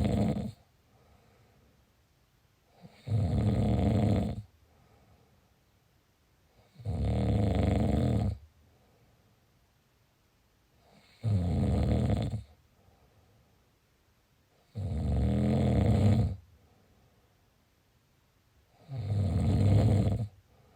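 Snoring: a loud snore about every four seconds, each lasting a second or more, with faint breathing between the snores.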